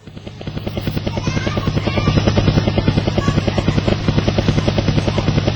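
Helicopter rotor chopping: a rapid, even beat over a low hum that swells in over the first couple of seconds and then holds steady.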